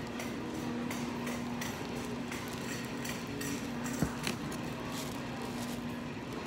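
Supermarket background noise with a steady hum, faint ticks and rustles of handling close to the phone, and a sharp knock about four seconds in, followed by a smaller one.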